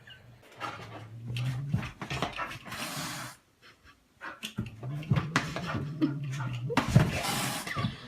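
A dog panting, with a couple of low, drawn-out vocal sounds.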